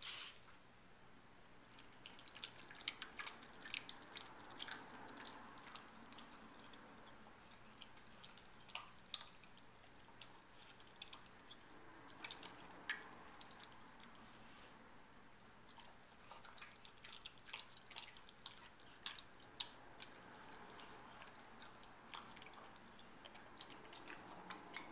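A dog eating from a stainless steel bowl: faint chewing with sharp little clicks of teeth and food against the metal, in three spells of a few seconds with short pauses between.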